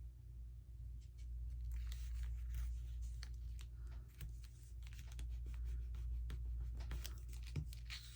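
Paper and card being handled and pressed down on a work table: scattered rustles, scrapes and light taps, over a steady low hum.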